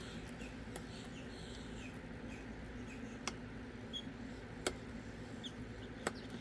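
Lock pick working the pins inside a Master Lock 410 padlock under tension: faint scratching with a few sharp light clicks spaced a second or more apart.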